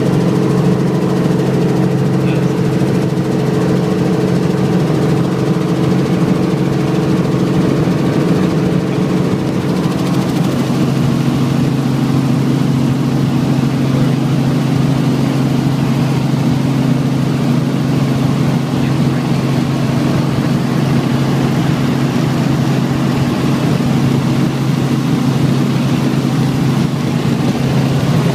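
Helicopter engine and rotors running in flight, heard from inside the cabin: a loud, steady mechanical note whose pitch pattern shifts about ten seconds in.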